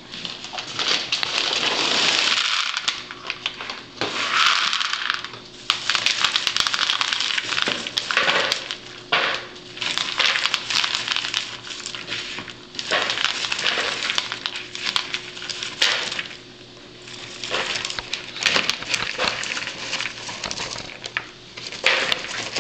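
Popcorn poured into a bowl fitted with a perforated plastic strainer, then hands rustling and grabbing through the popcorn in repeated spells, with many small clicks against the plastic.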